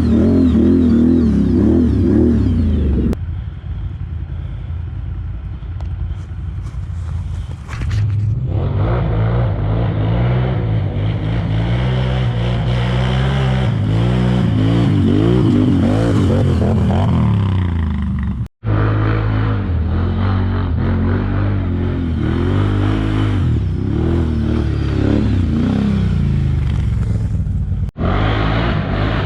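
ATV engines revving and running under load, their pitch rising and falling over and over. The sound changes abruptly several times and drops out briefly for a moment.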